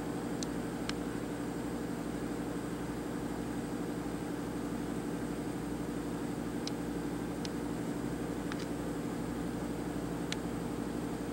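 Steady electrical hum and fan whir of a powered-on Unit Instruments DX-5 mass flow control power supply, with a few faint clicks.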